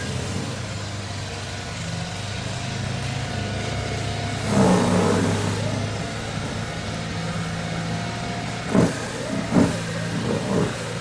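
Snow Joe iON18SB cordless 40-volt snow blower's electric motor and auger running steadily with a low hum while clearing icy slush and snow. There is a louder swell about halfway through and several short loud bursts near the end, as the auger bites into chunks of ice.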